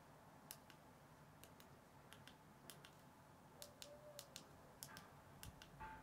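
Faint clicks of the small push buttons on a handheld camera remote, pressed one at a time at an uneven pace, about a dozen in all, as the camera menu is stepped through.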